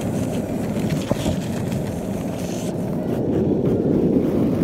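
Skateboard wheels rolling fast over rough asphalt, a steady low rolling noise mixed with wind on the microphone, with a single knock about a second in.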